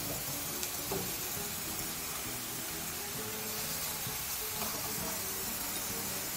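Bacon slices sizzling in a hot frying pan, a steady hiss, with a light click or two of metal tongs against the pan about a second in.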